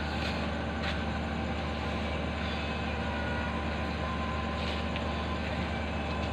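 Steady low diesel hum of a stationary passenger train idling, with a couple of faint clicks.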